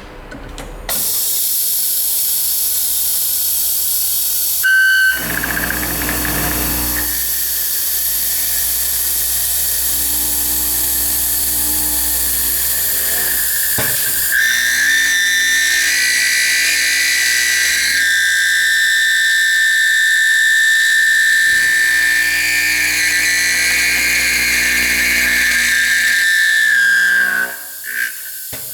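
An MLA A40/A45 copy router's spindle milling a lock pocket in a steel door profile. It makes a loud, steady hiss, and a high whine joins about halfway through. The sound starts about a second in and drops off near the end.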